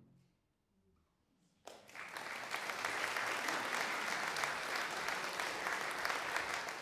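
The last low brass-band chord dies away, and after a second or so of quiet the audience breaks suddenly into applause that keeps going steadily.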